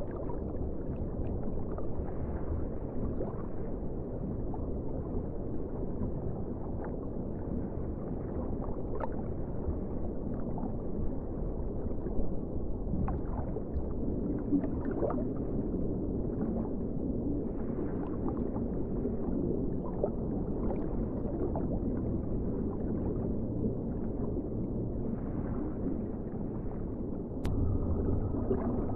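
Underwater ocean ambience: a steady, deep rush of water with scattered faint clicks and gurgles. Near the end there is a sharp click, after which the sound steps up a little in loudness.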